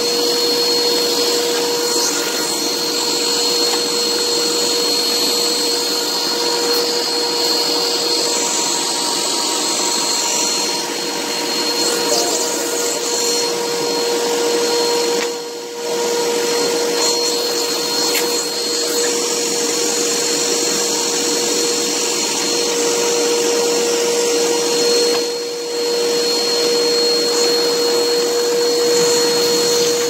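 Vacuum cleaner running steadily with a steady whine, its hose drawing dust out of a refrigerator's clogged condenser coils. The sound drops briefly twice, about halfway through and again about three-quarters through.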